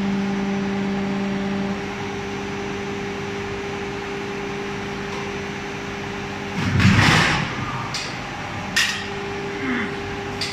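A 220T automatic die casting machine running, with a steady machine hum. About seven seconds in there is a loud burst of rushing noise, followed by a few short sharp clicks.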